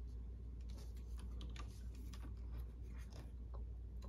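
Faint, irregular small clicks and scratches of hands handling a drone's plastic body and gimbal assembly, over a low steady hum.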